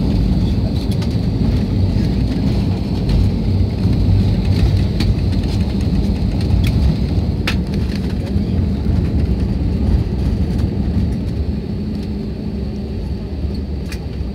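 Steady low rumble inside an airliner's cabin as the plane rolls along the runway after landing, easing slightly near the end, with a few faint clicks.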